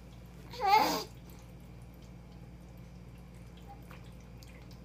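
A brief pitched vocal sound about a second in, then faint wet mouth smacks and small clicks of a baby eating puréed carrots off a spoon.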